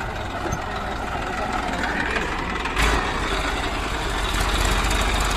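Diesel engine of a JCB 3DX backhoe loader running steadily, with a sudden thump about three seconds in, after which it runs a little louder.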